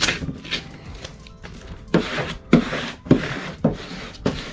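A plastic vinyl-wrap squeegee rubbing across the transfer tape and vinyl stripe on a car hood, with a short rub at the start and then four quick swipes about half a second apart.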